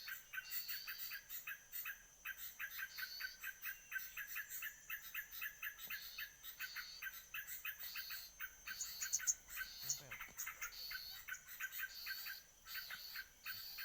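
Small birds calling: a fast train of sharp chirps, about five a second, with a short higher call coming back every second or so.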